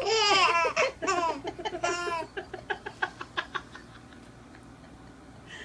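A 4-month-old baby laughing: a long, high, squealing laugh for about two seconds, then a run of short breathy laugh pulses that trail off about two-thirds of the way through.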